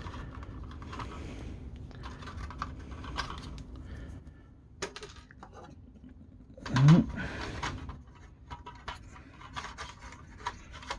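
Hard plastic parts of an Acid Rain toy vehicle clicking, tapping and scraping as they are handled and fitted together, with a steady rustle in the first few seconds. About seven seconds in comes a brief rising hum of a person's voice, the loudest sound.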